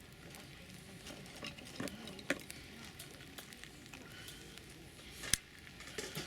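Small campfire being coaxed alight, crackling with scattered sharp pops, the loudest about five seconds in.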